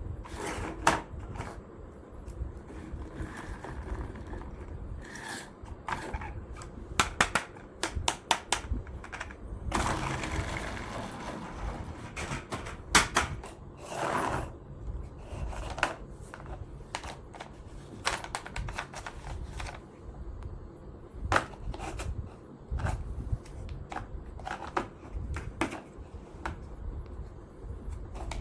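Irregular clicks, taps and scrapes of small hard objects being handled, with a longer stretch of scraping about ten seconds in.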